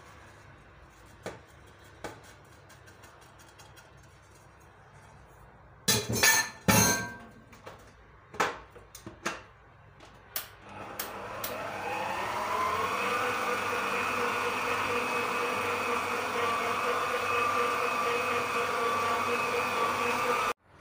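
A few loud clunks and clicks, then an electric stand mixer's motor starts about halfway through with a rising whine and settles into a steady whir as the whisk beats the cake batter, cutting off suddenly near the end.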